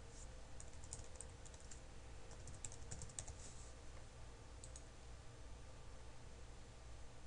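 Faint computer keyboard typing: a quick run of keystrokes over the first three and a half seconds, then a couple more clicks near five seconds in, over a low steady hum.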